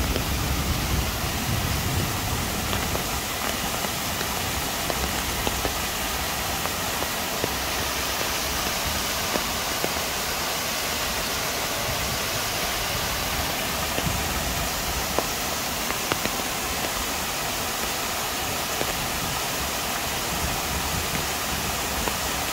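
Waterfall pouring steadily, with rain falling; a low rumble of thunder fades out in the first second.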